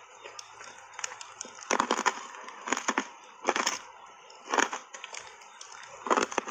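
Hard reshaped ice coated in matcha powder crunched and chewed between the teeth: a series of sharp, irregular crunches, roughly one a second.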